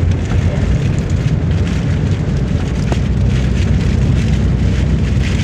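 Heavy rain falling in strong wind: a steady hiss of rain over a constant low rumble.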